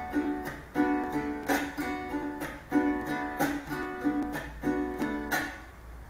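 Venezuelan cuatro strummed in the pasaje (joropo) rhythm in three-four: down and up strokes on ringing chords, broken by sharp muted chasquido strokes that choke the strings.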